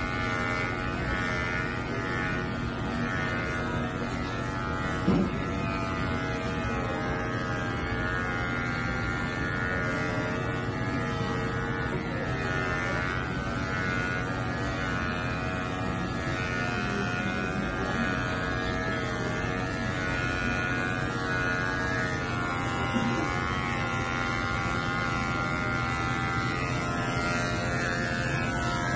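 Electric pet hair clippers running with a steady buzz, their pitch wavering slightly. A brief knock about five seconds in.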